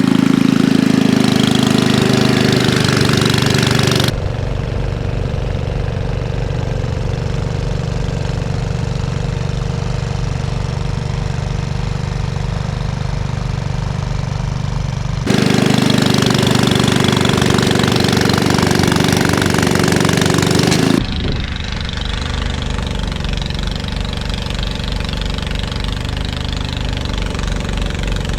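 Ariens Classic 24-inch two-stage snowblower's single-cylinder four-stroke engine running steadily under load as it chews through a deep drift of heavy, wet snow. The sound shifts abruptly in level a few times, louder and brighter at the start and again in the middle stretch.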